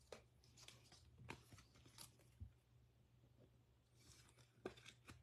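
Near silence, with faint scattered clicks and rustles of trading cards being handled.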